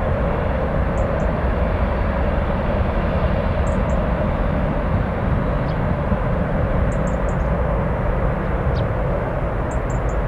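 Distant Airbus A319 jet engines at takeoff power, a steady roar as the airliner rolls down the runway and lifts off. A few short, faint high chirps sound now and then over it.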